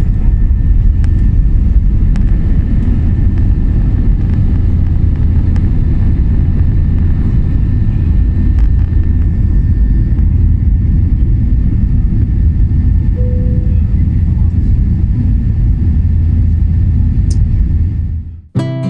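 Cabin noise of a Boeing 777-300ER on its takeoff roll: its GE90 engines at high thrust over a steady deep rumble from the runway, with a faint steady whine above. It cuts off suddenly near the end.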